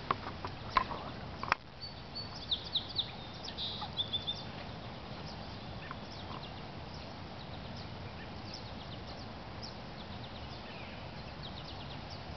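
Outdoor ambience with birds chirping: many short, quick chirps and calls, thickest a couple of seconds in, over a steady low background rush. A few sharp clicks sound in the first second or two.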